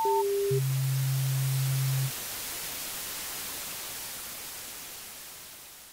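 Electronic static hiss of an animated logo sting. At the start two short beeps step down in pitch, then a low steady tone sounds for about a second and a half. The static fades out slowly towards the end.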